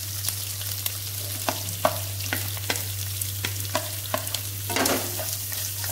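Sliced onions pushed off a ceramic plate with a spatula into hot oil in a nonstick pan: a steady sizzle, with a string of sharp clicks from the spatula knocking the plate, each ringing briefly. A louder sizzle comes about five seconds in as a batch of onion drops into the oil, over a steady low hum.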